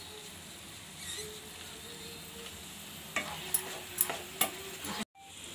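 Thick masala paste sizzling softly as it fries in a non-stick kadai while a wooden spatula stirs it, with several sharp knocks and scrapes of the spatula against the pan in the second half. The sound drops out briefly near the end.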